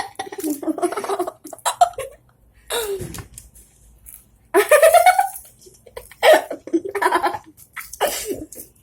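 Girls laughing and giggling in repeated short bursts.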